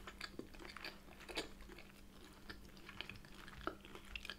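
A person chewing a mouthful of soft brioche bagel with cream cheese and bacon: faint, irregular wet mouth clicks and smacks.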